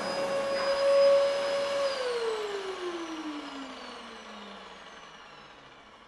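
Vacuum cleaner motor running with a steady whine, then switched off about two seconds in. The whine falls steadily in pitch and fades away as the motor spins down.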